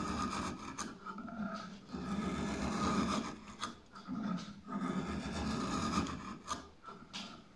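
Hand-forged drawknife shaving a wooden beam: the blade slices along the wood in repeated strokes, about five, each about a second long with short pauses between, lifting curled shavings.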